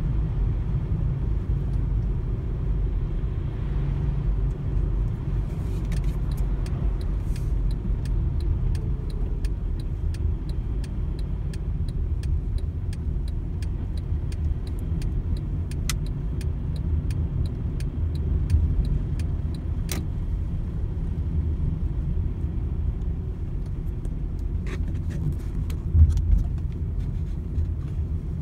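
Car cabin noise while driving: a steady low rumble of road and engine. From about six seconds in, a run of light, evenly spaced ticks lasts some fifteen seconds, and a single thump comes near the end.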